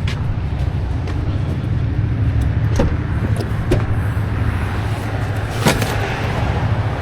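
A car running: a steady low rumble with a few light clicks and knocks.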